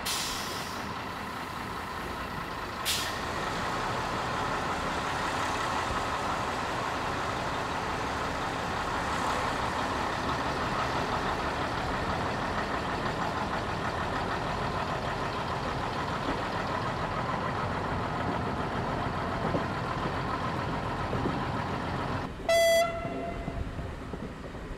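Diesel railcar engine running steadily as the train pulls out, then one short, very loud horn blast near the end.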